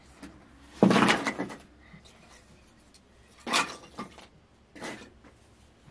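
Cloth bedding being handled and spread on a floor mat: a loud rush of fabric about a second in, then two shorter rustles.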